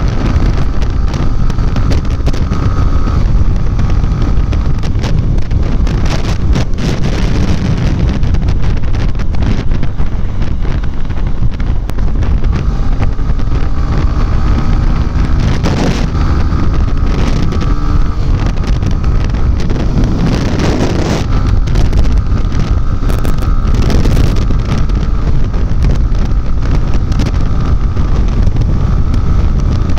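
Heavy wind buffeting on the microphone of a moving motorcycle, with the Yamaha XTZ Crosser 150's single-cylinder engine running steadily underneath at road speed. There are a couple of brief louder swells about halfway through.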